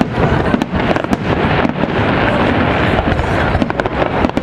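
Fireworks display: aerial shells bursting in a dense run of overlapping bangs and crackles.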